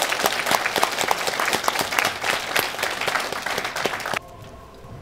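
Audience applauding, many hands clapping densely, cut off abruptly about four seconds in.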